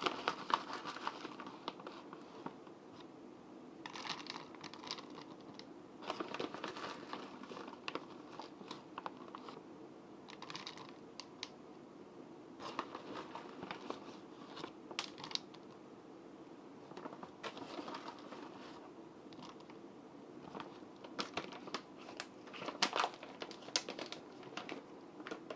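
Frozen blueberries being added to a blender jar: packaging crinkling in irregular bursts, with light sharp clicks of the frozen berries.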